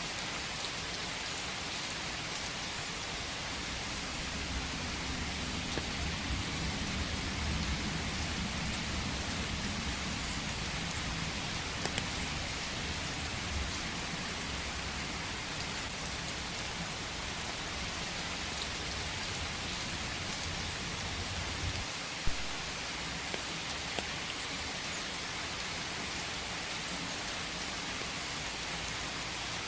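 Steady rain falling in a forest, an even hiss. A low rumble runs under it through the first two-thirds, and one sharp drip-like tap stands out about 22 seconds in.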